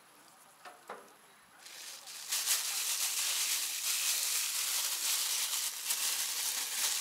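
A skillet of chicken and sauce under shredded cheese sizzling on the grill: a steady, fairly loud hiss that swells in about two seconds in and keeps going, after a couple of soft clicks.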